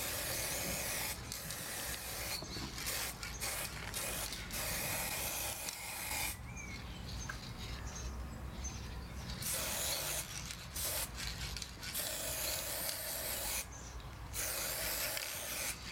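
Aerosol spray-paint can hissing in repeated bursts of one to three seconds, with short pauses between them and a longer pause of about three seconds around the middle.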